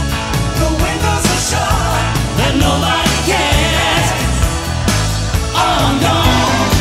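Rock song with a singer over a steady drum beat.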